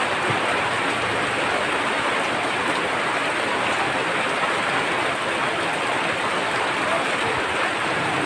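Rain falling steadily, an even hiss with no breaks.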